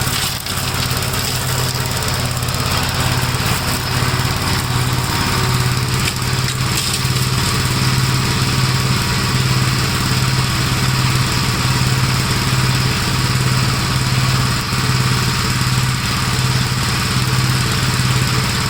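1956 Gravely Model L tractor's single-cylinder engine running steadily with a low, even throb, driving its brush hog rotary mower as it mulches fallen nuts.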